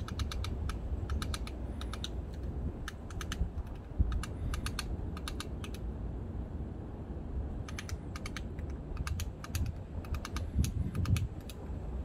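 Japanese pygmy woodpecker pecking at a thin branch: quick runs of light taps, two to four at a time, with a pause of about two seconds past the middle. Under it is a low rumble of wind noise on the microphone.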